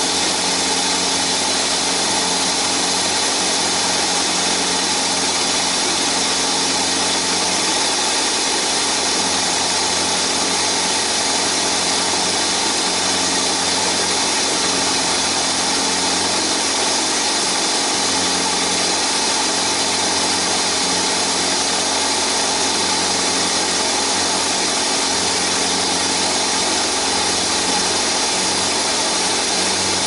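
Toyota Corolla engine idling steadily while still cold, heard close from the engine bay.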